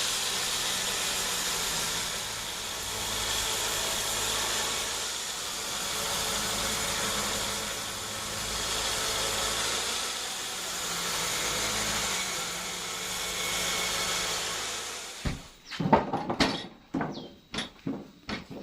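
Homemade band sawmill cutting through a hard acacia log: a steady saw noise over a low motor hum, swelling and easing every few seconds. About fifteen seconds in, the cut stops suddenly and a quick series of sharp knocks and clatter follows.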